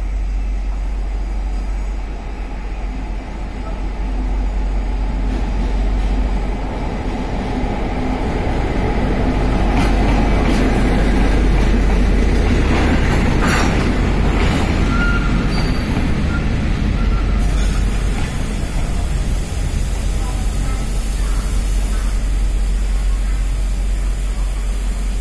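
Freight train pulling into a station behind a diesel-electric locomotive. The locomotive's engine and wheels grow louder as it approaches and pass by about ten to thirteen seconds in. The wheels of a covered wagon and empty flatcars then roll past, and a high hiss joins about two-thirds of the way through.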